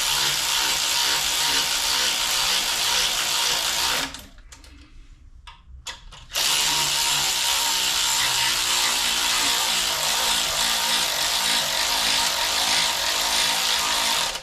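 Power tool running Northstar cylinder head bolts down before torquing. There are two long, steady runs, about four seconds and then about eight seconds, with a short pause between them.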